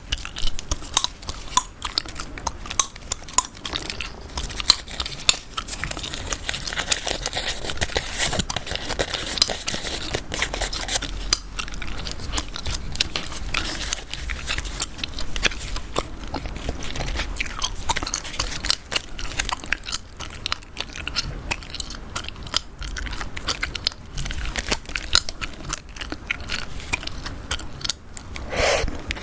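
Chewing gum close to the microphone: a dense, continuous run of small clicks and smacks from the mouth.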